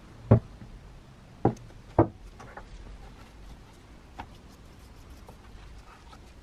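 Three sharp knocks in the first two seconds, as a container is set down on a wooden workbench. They are followed by a bristle brush dabbing liquid onto cast-iron jack parts in a plastic tub, with a lighter tap about four seconds in.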